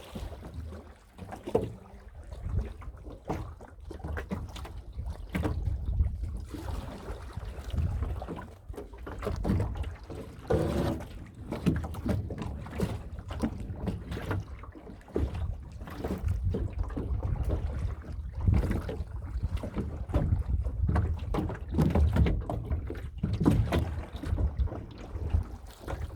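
Wind rumbling on a microphone mounted on a small boat, with irregular knocks and splashes of water around the hull.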